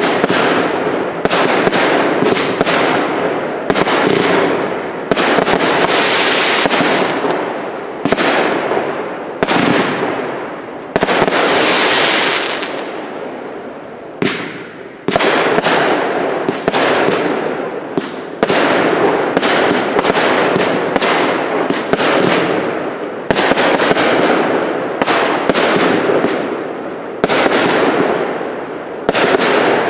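Firework display from cake batteries: aerial bursts going off in quick succession, each bang trailing off in a long echo. There are two longer hissing stretches and a short lull about halfway.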